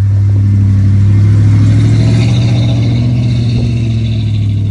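Ford Bronco's engine pulling under load as the truck drives up soft sand. It is a loud, steady low drone that swells in the first moment, then holds nearly even in pitch.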